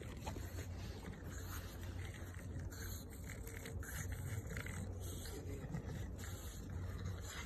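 Faint scraping and rustling of a plastic saucer sled dragged over snow by a French bulldog holding it in its mouth.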